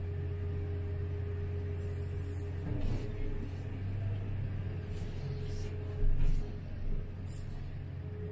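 Komatsu PC3000 mining excavator heard from inside its cab: its engine and hydraulics make a steady low drone with a faint steady whine above it. A few heavy thumps come about three, six and seven seconds in, the loudest about six seconds in, as the bucket's load of rock drops into the haul truck's bed.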